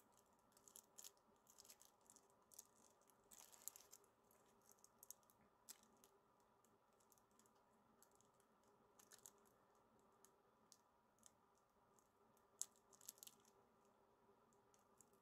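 Near silence: faint room tone with scattered soft clicks and small handling noises. The loudest click comes near the end.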